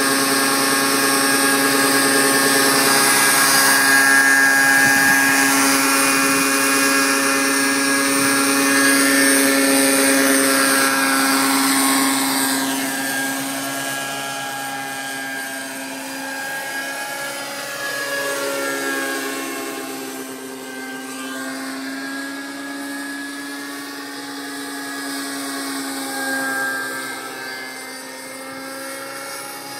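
Radio-controlled MD 500 scale helicopter lifting off and flying away: a steady whine of motor and rotor blades that grows fainter about halfway through, its pitch bending up and down as it moves around.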